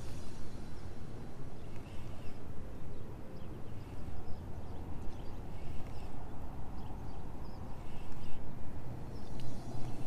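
Wind rumbling and buffeting on an action camera's microphone, with faint short high chirps now and then and light handling noise as a spinning reel is worked.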